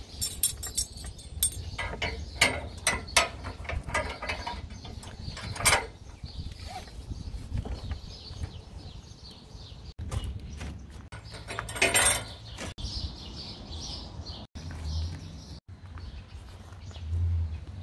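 Nylon webbing straps of a cargo net being pulled tight through their buckles by hand, with repeated clicks and rattles of the buckle hardware and one longer rasp of strap sliding through a buckle later on.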